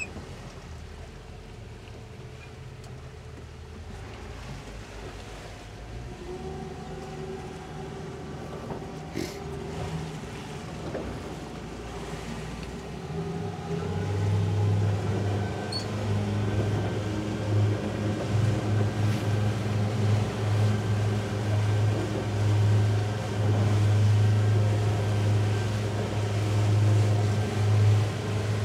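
Twin outboard motors on a catamaran towboat throttling up to pull a 57-foot yacht on a tow line. They grow steadily louder, and a strong, steady low drone sets in about halfway through as the boat comes up to towing speed.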